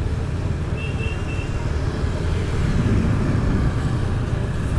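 Busy town traffic heard while riding through it: a steady low rumble of engines, with a short high-pitched tone about a second in.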